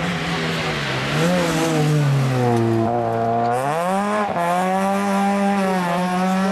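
Rally car engine passing close by. The revs fall away over the first few seconds, then climb sharply and hold high as the car accelerates away.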